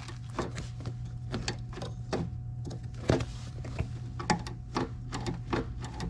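2001 Honda Civic's floor-mounted trunk and fuel-door release lever being worked up and down on its new cable, giving a run of light, uneven plastic-and-metal clicks over a steady low hum; the downward, fuel-door pull is a little crunchy.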